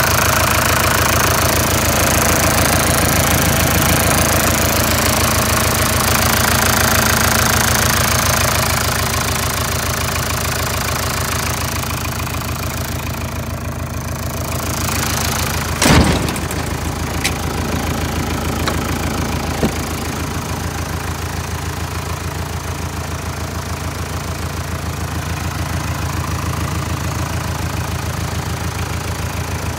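Mitsubishi Canter truck's engine idling steadily. About halfway through there is one sharp clunk as the cab door is pulled open by its handle, followed by a few light clicks.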